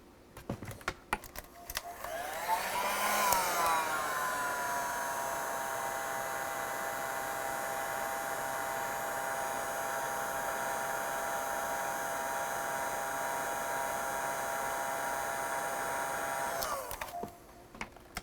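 Electric heat gun, preceded by a few handling clicks, switched on about two seconds in: its fan whine rises and settles to a steady blowing hum as it shrinks heat-shrink tubing onto a cable, then switched off about a second before the end.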